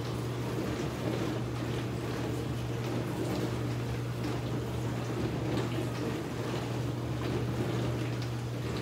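Pot boiling on the stove: a steady bubbling, watery noise over a steady low hum, with a few faint soft ticks.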